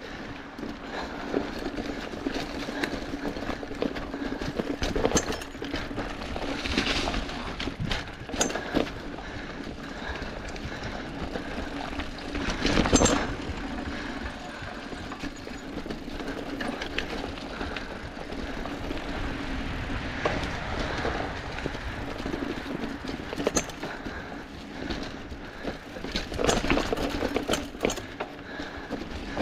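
Mountain bike ridden along a bumpy dirt trail covered in fallen leaves. The tyres roll on steadily, with frequent knocks and rattles from the bike over the bumps and one louder jolt about 13 seconds in.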